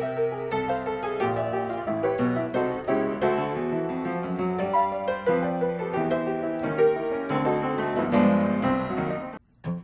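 Background piano music: a stream of struck piano notes and chords, breaking off briefly just before the end.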